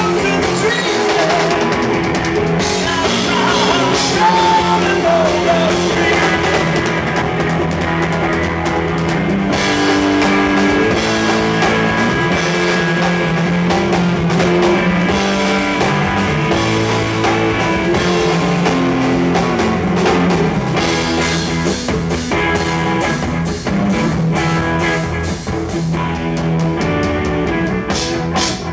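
Rock band playing live: electric guitar over electric bass and a drum kit.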